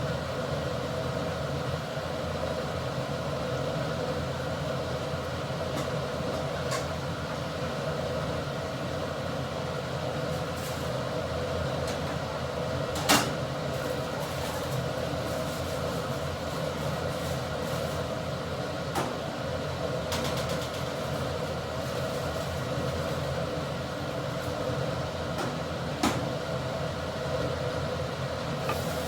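A steady mechanical hum, with a few sharp knocks or clicks on top; the loudest knock comes about halfway through.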